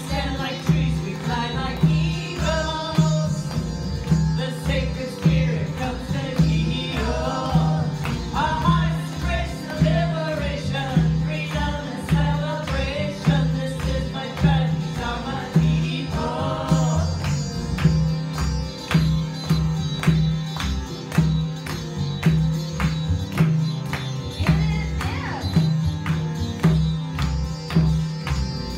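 Devotional kirtan music played live: harmonium and a low droning bass line under a steady hand-drum beat, with women singing a chant for roughly the first half, after which it carries on as instrumental.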